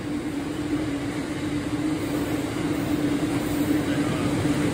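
Diesel freight train passing at a steady pace: a continuous rumble with a steady droning tone, slowly growing louder.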